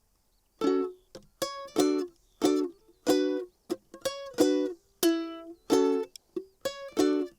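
Tenor ukulele (Enya K5) strumming chords in a steady rhythm, starting about half a second in, with short cut-off strokes between the ringing strums.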